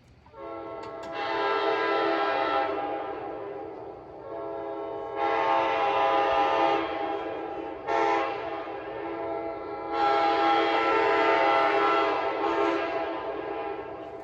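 Nathan Airchime K5LA five-chime locomotive air horn with brand-new diaphragms and cushions, blown in a series of blasts. It gives two long loud chords, a short sharp blast about eight seconds in and a final long blast that tapers off near the end, with softer horn tone in between.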